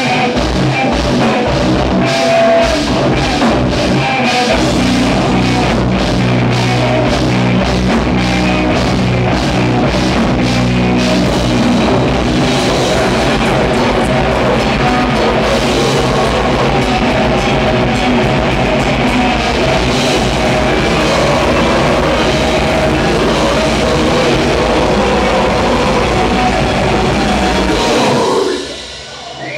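Live death/grind metal band playing loud, with rapid drum strikes through the first dozen seconds, then a sustained wall of distorted sound that drops away near the end.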